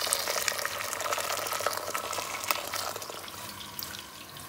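Water pouring into a steel pot onto hulled wheat groats (dzavar), a steady pour that eases off near the end.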